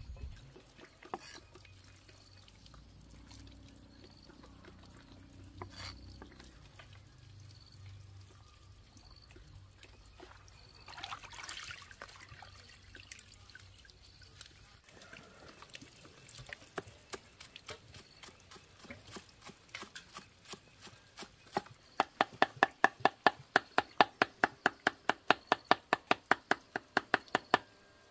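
Hands swishing leafy greens in a basin of water, then a knife chopping the greens on a round wooden chopping block. The chopping is light and uneven at first, then turns into loud, steady strokes of about five a second for the last six seconds.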